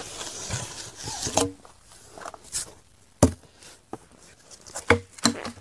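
Handling noises as a heavy submersible pump motor is slid out of its packing tube and stood upright: rustling at first, then a few sharp knocks, the clearest about three seconds in and near five seconds.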